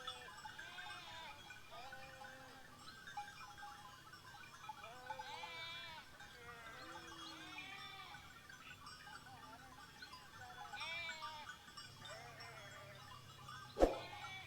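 A flock of sheep bleating, faint, with many short calls overlapping at different pitches. A single sharp knock near the end.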